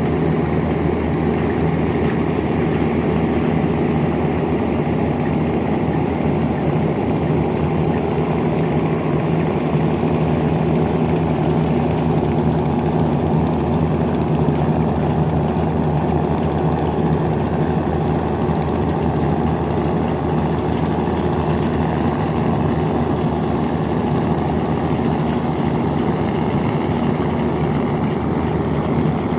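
Boat engine running steadily at an even speed, a constant low drone with no change in pitch.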